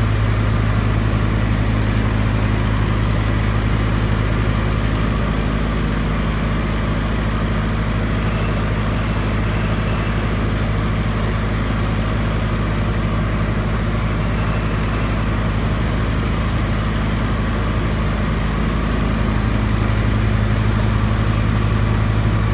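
Perkins-engined 20 kW diesel generator set running steadily under load, together with the resistive load bank it is powering: a steady low hum with a rushing noise over it. It dips slightly in the middle stretch and comes back up near the end.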